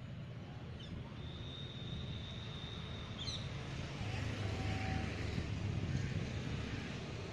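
Road traffic: the low rumble of a passing vehicle swells and fades in the middle, with a thin high whistle that ends in a quick chirp about three seconds in.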